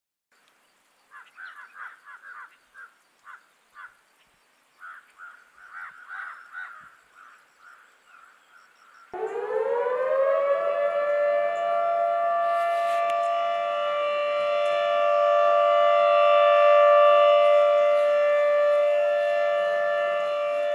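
A dam's warning siren, sounded for the opening of the spillway shutters. It starts about nine seconds in, winds up in pitch and then holds one steady, loud tone. Before it come several seconds of short, faint, irregular chirps.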